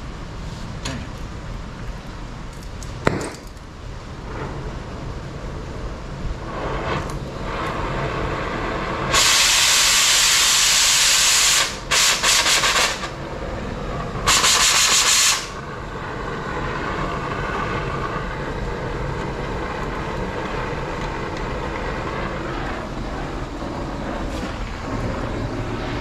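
Steady mechanical running noise, broken by three loud bursts of hissing that start and stop abruptly, the first about two and a half seconds long beginning about nine seconds in, the next two shorter.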